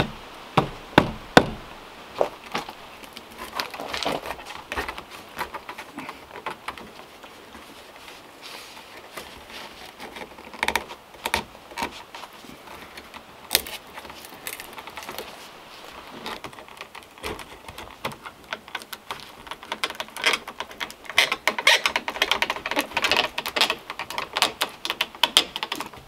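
Wood knocking and clicking on wood as a hand-carved wooden door handle and its pegs are tapped and fitted into a wooden cabin door. There are a few hard knocks at the start, scattered clicks after that, and a quicker run of knocks and clicks near the end.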